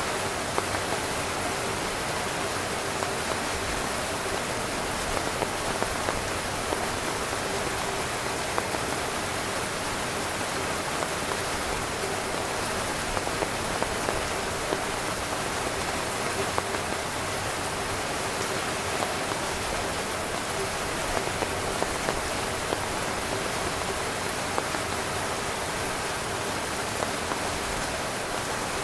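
Heavy rain drumming steadily on a camping tent, a dense hiss with scattered louder drops striking the fabric.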